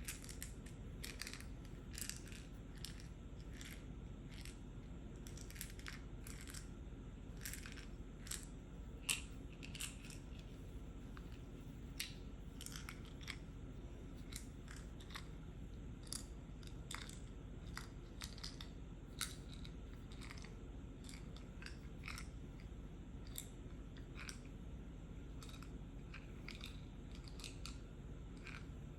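Fast, irregular tapping on a medicine pill box: a busy patter of small clicks, a few much sharper than the rest, over a steady low background hum.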